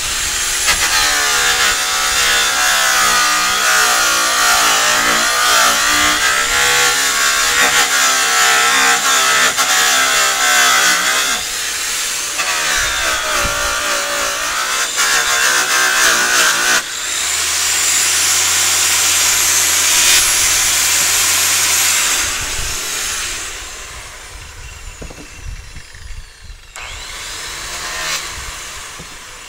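Handheld power polisher buffing aluminium trailer sheet, its motor whine wavering in pitch as it is pressed against the metal. It stops briefly about 12 seconds in, runs again, shifts to a steadier hum with a hiss from about 17 seconds, and dies down after about 23 seconds.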